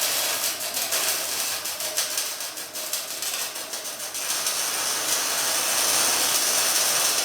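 MIG welding arc on steel, a continuous crackling sizzle of fine rapid pops as a bead is run.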